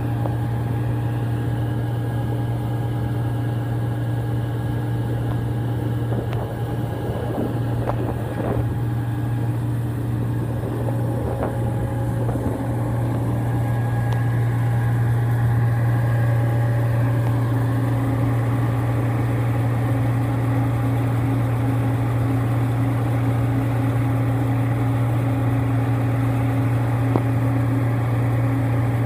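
A 2011 Gleaner R55 combine running steadily while its unloading auger pours wheat into a grain truck's trailer: an even machine drone with a strong low hum.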